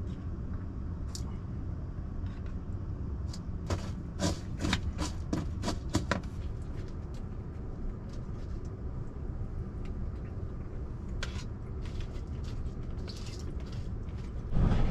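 A spoon clinking and scraping against a bowl while breakfast is eaten: a run of small sharp taps in the middle, then a few more later, over a steady low rumble. A louder knock comes just before the end.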